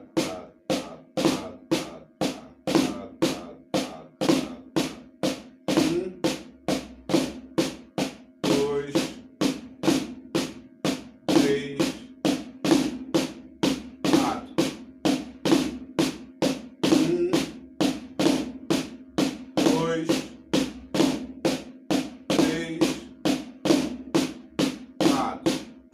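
Snare drum played slowly and evenly: the Swiss Army Triplet rudiment, a flam figure repeated over and over in sextuplets, each stroke ringing briefly.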